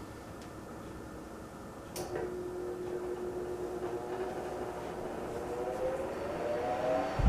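Wizard Citation 12-inch one-speed oscillating fan switched on with a click about two seconds in; the motor hums and its pitch rises slowly as the blade spins up to speed.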